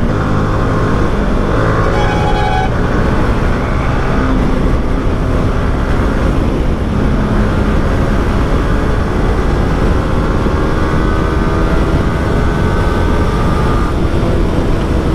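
Yamaha R15 V3 single-cylinder engine running at highway speed under a heavy low rumble of road and wind noise, its pitch climbing slowly as the bike gathers speed in the second half. A vehicle horn sounds briefly about two seconds in.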